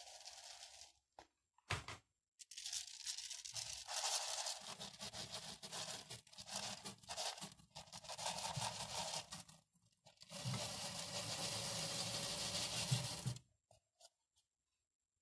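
Granular aquarium soil substrate being shifted about in the tank: a gritty rustling and scraping in two long stretches with a brief break around ten seconds in, stopping shortly before the end.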